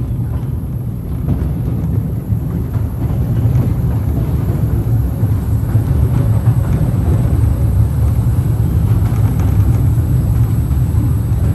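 The Mail Rail ride train running through its narrow underground tunnel, heard on board: a loud, steady low rumble of wheels on track that grows slightly louder a few seconds in.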